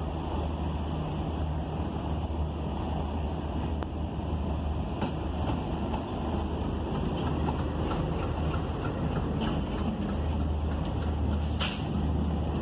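Diesel locomotives pulling a train past at close range: a steady low engine drone over the rumble of the train. A brief sharp high screech comes near the end.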